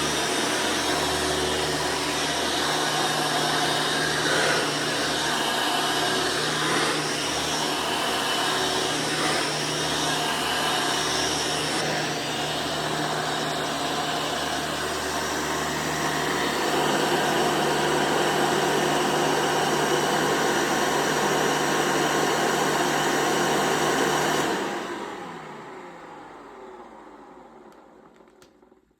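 2008 Hoover Elite Commercial upright vacuum cleaner running steadily, then switched off about 24 seconds in, its motor winding down over several seconds.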